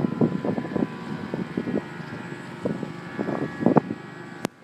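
Wind buffeting the microphone in irregular gusts over a faint steady whine from the RC model container ship's brushless outrunner motor. A single sharp click near the end.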